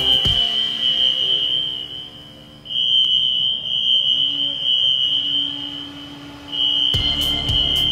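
Fire alarm horn sounding one steady high-pitched tone in long blasts, broken twice by short gaps. The hangar's notification circuits are in alarm during the countdown to foam release.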